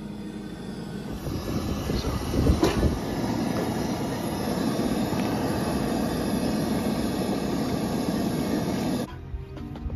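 A pot of macaroni at a rolling boil on a two-burner propane camp stove, the burner and bubbling water making a steady rushing rumble, with a brief louder knock about two and a half seconds in. The sound starts about a second in and cuts off abruptly about a second before the end.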